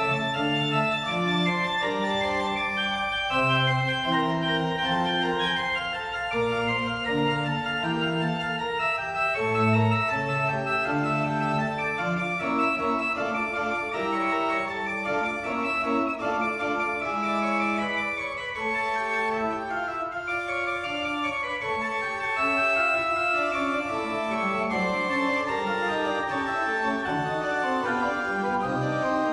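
Church pipe organ playing a lively piece: quick runs of notes over a moving bass line, sounding continuously.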